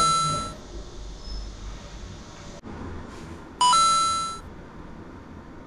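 Two-note rising chime sound effect, a short low note stepping up to a longer ringing higher note, heard twice, once at the start and again about three and a half seconds in. Faint low room noise lies between the chimes.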